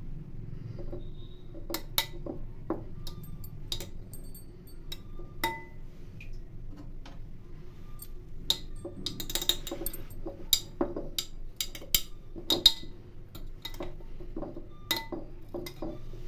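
A utensil clinking irregularly against the inside of a tall drinking glass while strawberry crush is spread around its walls; some of the clinks leave a short glassy ring. The clinks come thickest in the second half, with the sharpest one a little before the end.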